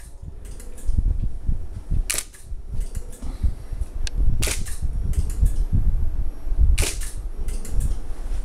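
DSLR camera shutter firing three times at an even pace, about two and a half seconds apart, as the automated turntable rig takes its sequence of shots, with a low rumble underneath.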